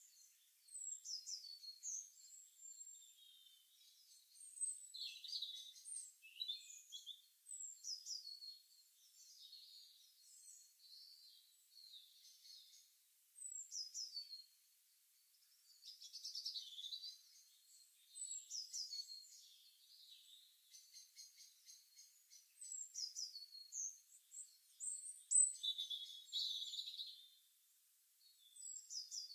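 Birds singing and chirping faintly: short, high, falling whistled phrases repeated every second or two with brief pauses between.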